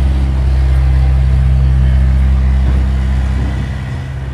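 Engine running steadily with a low, even hum, fading away near the end.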